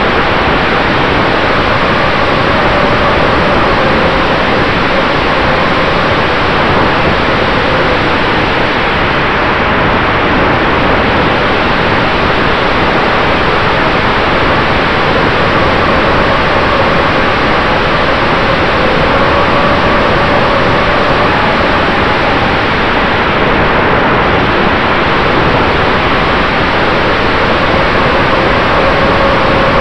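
Loud, steady rush of wind over an onboard camera on a flying RC warbird. Under it runs a faint whine from the Cobra C-2820/12 brushless motor and propeller, its pitch rising and falling with the throttle.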